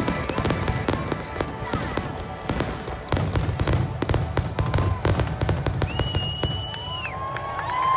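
Fireworks finale: rapid volleys of bangs and crackles, thinning out about five seconds in. Near the end a long high whistle from the crowd starts up.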